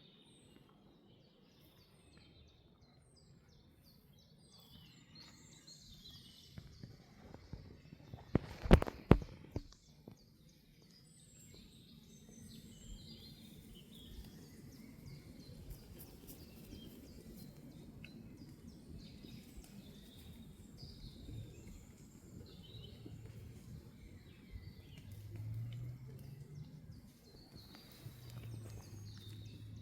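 Small birds chirping and tweeting high up, with footsteps rustling through the forest floor's leaf litter. A few sharp, loud knocks or snaps come together about nine seconds in.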